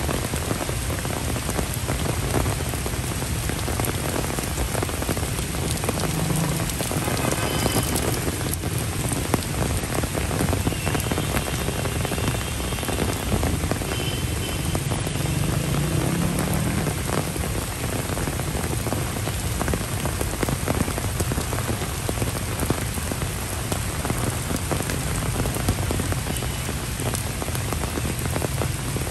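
Steady rain falling on wet paving and foliage: an even hiss with a dense patter of drops.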